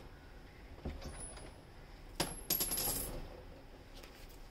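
A light knock about a second in, then a short clatter of a small hard object with a brief high ring a little after two seconds.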